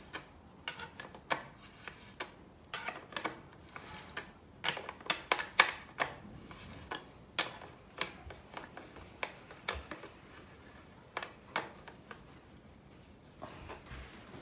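Irregular metallic clicks and clinks of tools working on a bicycle's Hollowtech bottom bracket as its cup is tightened, heaviest in the middle.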